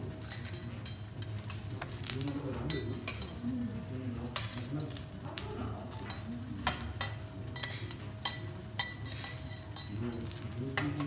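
Metal teppanyaki spatulas clinking and scraping against a steel griddle as vegetable slices are turned and moved, a string of sharp clinks over a faint sizzle.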